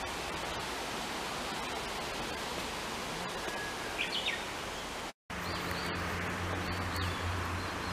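Outdoor ambience: a steady rushing hiss with a few bird chirps about four seconds in. After a brief cut about five seconds in, a low steady hum comes in and birds chirp repeatedly.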